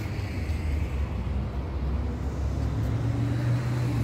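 Street traffic: a car engine running close by, a steady low hum over road noise that grows stronger about three seconds in.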